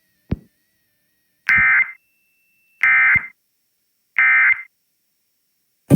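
Emergency Alert System end-of-message signal: three identical short bursts of screechy digital data tones, each about half a second long and a little over a second apart, closing out the severe thunderstorm warning. A brief click comes just before the first burst.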